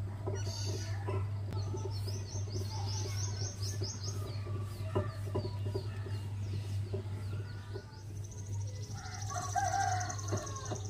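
Small birds chirping in quick runs of high notes, and a chicken calling near the end, over a steady low hum.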